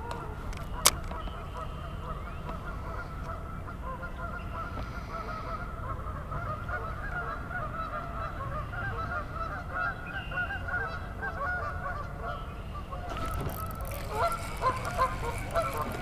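Geese honking, many short calls overlapping in a busy chorus that is thickest through the middle, over a steady low rumble. A single sharp click about a second in, and a few louder knocks near the end.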